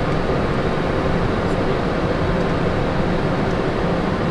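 Steady cockpit noise of a Cessna Citation Sovereign climbing out after takeoff: rushing airflow and the hum of its twin turbofan engines, with a few steady tones.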